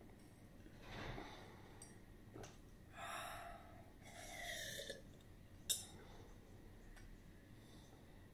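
Faint heavy breathing of a girl sipping water from a glass after eating very spicy chips: separate breaths about one, three and four and a half seconds in, and a small click just before six seconds.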